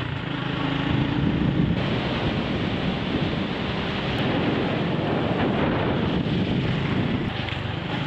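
Steady wind buffeting the microphone of a camera on a moving scooter, with the engine running underneath; the sound changes abruptly twice.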